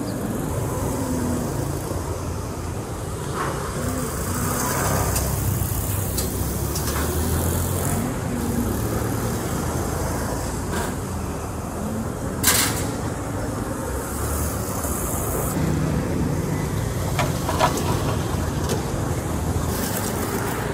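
Steady rumble of street traffic, passing vehicles, with patches of high hiss and a sharp click or knock about twelve seconds in.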